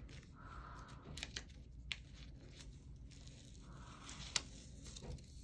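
Faint crinkling and rustling of a StayFix tube-securement device's adhesive backing as it is peeled and pressed down by nitrile-gloved hands, with a few small sharp ticks, the sharpest a little past halfway.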